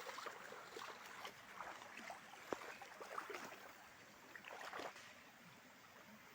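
Faint running water of a clear forest river, with small irregular trickles and splashes.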